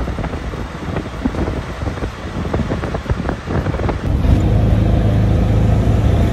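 A road vehicle travelling, with engine and road noise. The first few seconds are full of rattles and knocks. From about four seconds in it turns into a steadier, louder low drone.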